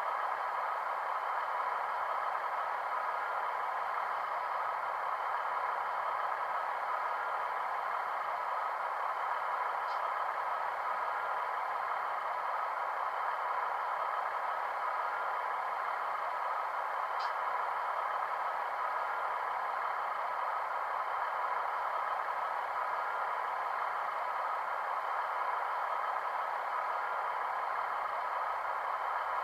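Model railway sound decoder playing a Class 156 diesel unit's engine idle through the model's small onboard speaker: a steady, thin drone. Two faint ticks come about ten seconds in and again about seven seconds later.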